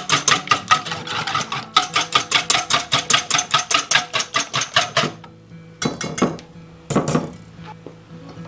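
Wire whisk beating a liquid egg-and-milk mixture in an enamel-coated steel bowl, the wires clicking against the bowl fast and evenly, about six strokes a second. The whisking stops about five seconds in, followed by a few separate knocks.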